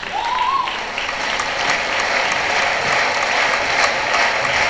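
Audience applauding, a dense steady clapping, with one brief rising call near the start.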